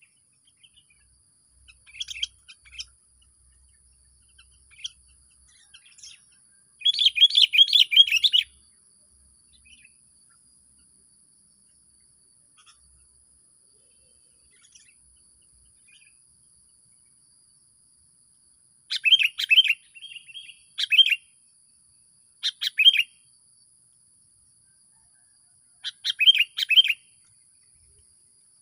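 Songbird singing in short bursts of rapid, loud chirping, the longest and loudest phrase about seven seconds in and several more in the second half, with quiet pauses between. The singer is a decoy bird perched in a tree.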